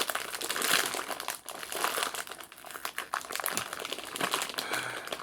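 Plastic candy bag of Jelly Fruits crinkling and crackling as it is worked and pulled at by hand to tear it open; the bag is a tough one to open.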